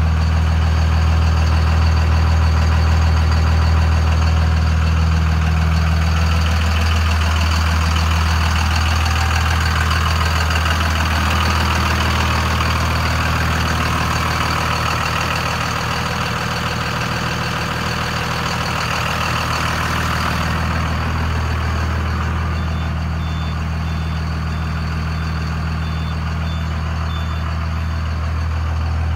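1999 Dodge Ram 3500's 5.9L Cummins turbo-diesel inline-six idling steadily through its Banks exhaust. Its higher clatter grows louder for about twelve seconds in the middle, then eases back.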